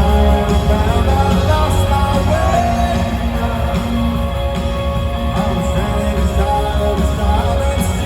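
Live rock band playing in an arena, with sustained guitar-led chords and a voice singing a wavering melody over them.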